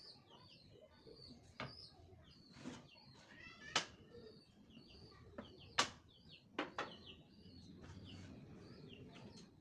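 Small birds chirping in quick, repeated short calls, with several sharp clicks or taps, the loudest about four and six seconds in.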